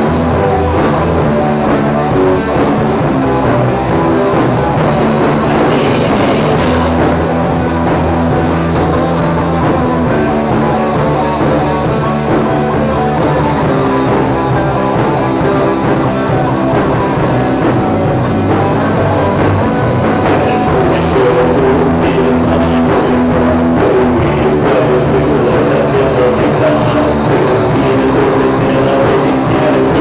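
Rock music: a Cort M200 electric guitar playing chords with a drum kit, steady and loud.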